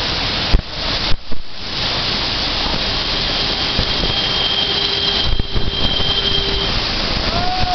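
Steady roar of a mountain waterfall pouring down a rock face. A few sharp knocks come about half a second to a second and a half in.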